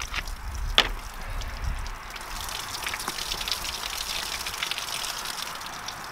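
Water pouring in a steady stream out of a shot-through plastic 2-liter bottle and splashing onto the ground, with one sharp knock about a second in.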